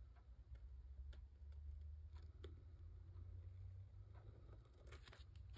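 Near silence: low room hum with a few faint, scattered ticks.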